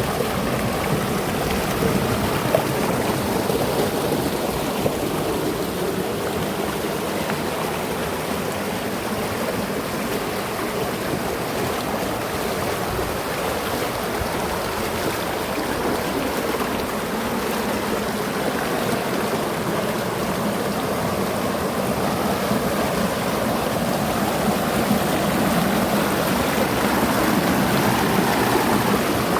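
Mountain river flowing over small cascades into pools: a steady, continuous rush of water, growing slightly louder near the end.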